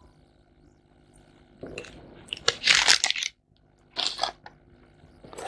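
Crinkling and crunching of packaging being handled: one longer bout about two seconds in, then a short one near four seconds.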